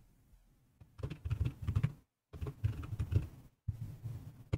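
Fast typing on a computer keyboard as a password is entered, in three quick runs of key clicks with short pauses between them, then one sharper single click near the end.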